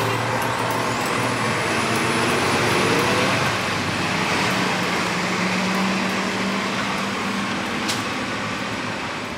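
City street traffic: a steady wash of road noise from passing vehicles, with a heavy vehicle's engine hum swelling in the middle and fading toward the end.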